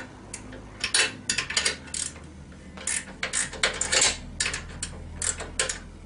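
Hand wrench working the ATV rear axle adjuster bolts and nuts loose: a run of irregular metallic clicks and clinks, some in quick clusters.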